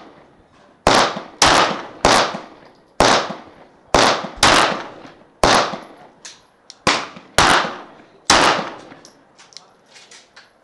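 Glock 19 9 mm pistol fired about ten times at an uneven, unhurried pace, each shot a sharp crack with a long echoing tail. Fainter pops and clicks come between the later shots.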